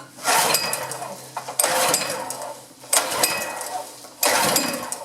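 Honda GX200 engine pulled over on its recoil starter four times, about a second and a half apart, each pull cranking briefly and dying away without the engine catching. The owner suspects it is not getting fuel.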